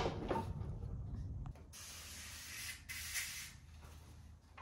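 Aerosol spray can hissing in two short bursts, each about a second long, starting about a second and a half in. Before them a low rumble stops suddenly.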